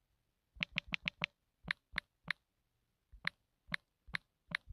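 Key-press clicks of an Android phone's on-screen keyboard as text is typed: short, sharp clicks at an uneven pace, a quick run of five about half a second in, then single taps spaced out with a pause near the middle.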